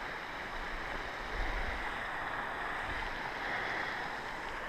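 Steady rushing of a small mountain creek, with a brief low rumble on the microphone about a second and a half in.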